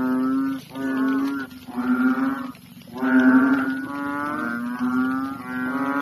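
Big frogs croaking in a chorus: long, low, moo-like calls, like cows, about six in a row with a short break partway through, some overlapping.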